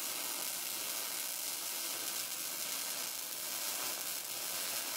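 A steady sizzling hiss with no pitch and no clear rhythm.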